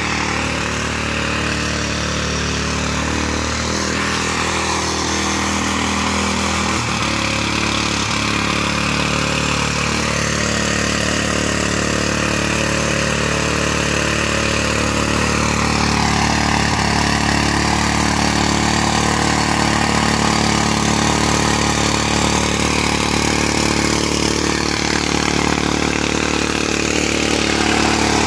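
Mitsubishi-engined walk-behind rotary tiller running steadily as it tills garden soil. The engine note shifts slightly in pitch a few times as the load changes.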